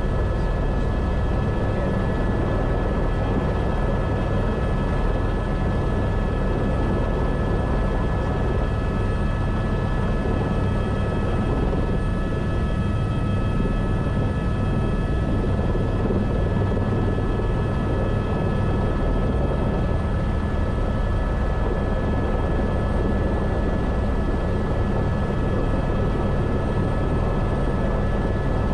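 Airbus H125 (AS350 B3e Esquilo) helicopter running steadily: a constant low drone from the rotor and single turboshaft engine, with a steady high whine on top.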